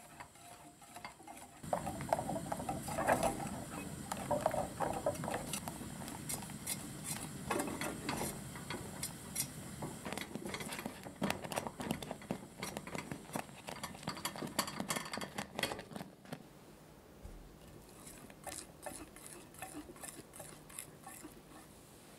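Wire whisk stirring thick custard cream in a stainless steel saucepan: quick, steady strokes, with the wires ticking and scraping against the pan and the cream slapping wetly. About sixteen seconds in it drops to a quieter run of scattered light clicks.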